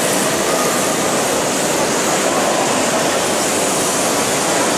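Steady, even roar of a busy exhibition hall around an RC drift track: crowd din and the running of electric RC cars blended into one continuous noise, with no single sound standing out.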